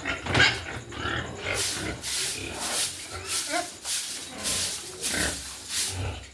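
Pigs in a pen making noise, with a run of short noisy bursts about two a second.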